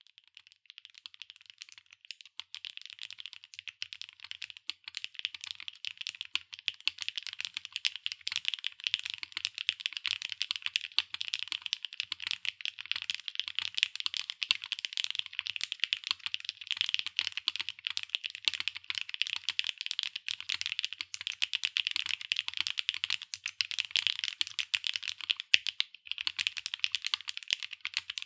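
Fast, continuous typing on a SAAG65 mechanical keyboard with HMX Hibiscus linear switches, an aluminium plate, O-ring mount, no foam and PBT/ABS double-shot keycaps: a dense stream of crisp key clacks, a little quieter for the first couple of seconds.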